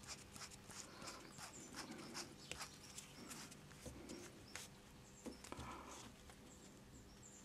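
Faint small clicks and taps of a screwdriver turning the screw that holds the needle-valve lever in a chainsaw's diaphragm carburettor, over quiet room tone.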